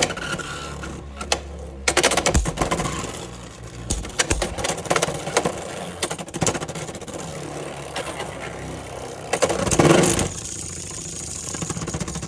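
Beyblade X spinning tops whirring in a plastic stadium and clashing, with many sharp clacks of plastic and metal hitting. The hardest clusters of hits come about two, four and ten seconds in.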